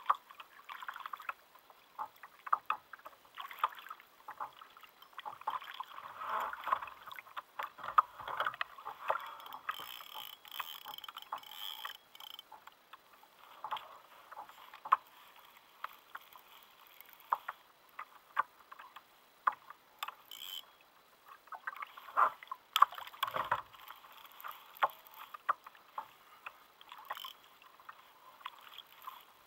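Water splashing and lapping around a plastic sit-on-top kayak, with many irregular sharp knocks and clicks of the paddle and fishing gear against the hull.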